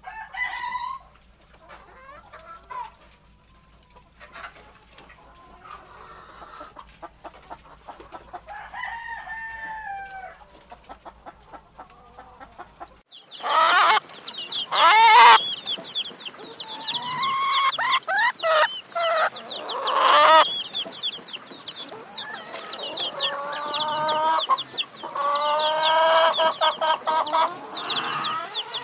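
A flock of hens clucking and calling, with chicks peeping over them. The calls are sparse for the first half; about halfway through they become louder and busier.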